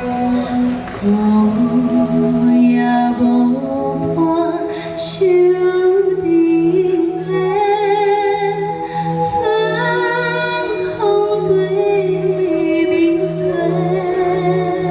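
A singer performing an old Taiwanese Hokkien song live with band accompaniment: held, wavering vocal lines over a steady pulsing low note.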